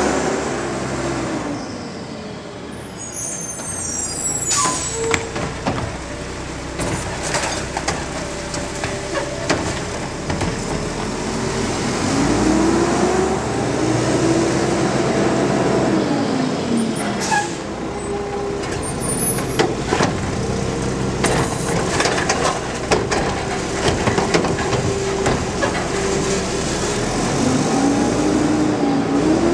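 Diesel garbage truck (McNeilus front loader with a Curotto Can automated cart arm) running. Its engine revs up and back down several times as the hydraulics work the arm, with air-brake hisses and metallic clanks in between.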